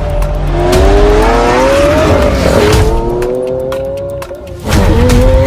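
Lamborghini engine accelerating hard through the gears. Its pitch climbs, drops at a gear change about two and a half seconds in, and climbs again. Near the end there is a brief dip, then a louder surge.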